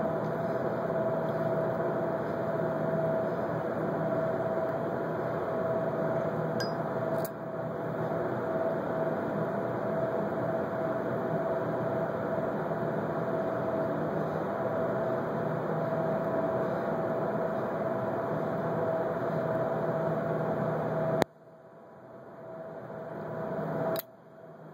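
Lighter flame held to a tobacco pipe's bowl, a long steady hiss with a faint whine that cuts off sharply about 21 seconds in, followed by a click near the end. The wet, gummy tobacco is slow to catch.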